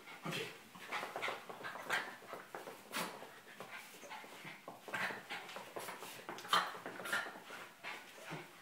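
Boston terrier panting in quick, short, irregular breaths as it jumps and tugs at a toy, with a few louder breaths in the second half.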